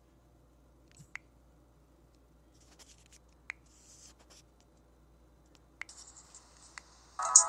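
Faint scattered clicks and scratching over a low steady hum. About seven seconds in, a loud electronic tone starts, steady, with a rapidly pulsing high chirp over it.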